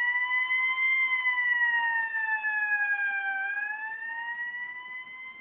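Fire engine siren wailing: a single tone that slowly rises for about a second, sinks over the next two, then climbs again.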